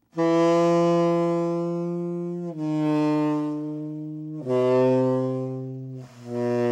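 Tenor saxophone playing four long held notes, each stepping lower in pitch than the last. It is blown while the player is slouched over, which cramps the airstream and gives a poor tone, 'not very good'.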